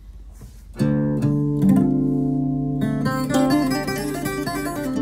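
Acoustic guitar being played. After a quiet first second, plucked notes ring out and sustain, then faster, busier plucked notes follow from about three seconds in.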